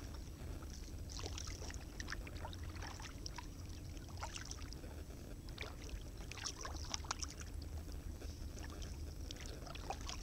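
Kayak being paddled on calm water: irregular small splashes and drips from the paddle blades over a steady low rumble of wind on the microphone.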